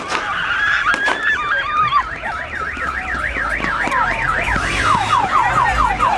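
An emergency vehicle siren yelping, its pitch sweeping rapidly up and down several times a second, switching near the end to a faster run of falling sweeps.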